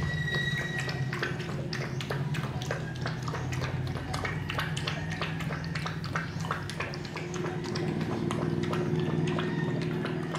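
Puppies lapping milk from a plastic bowl: quick, irregular wet clicks, several a second, over a steady low hum.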